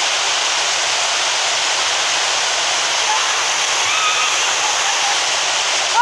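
Waterfall water rushing steadily over a rock ledge, a constant, even noise close to the microphone.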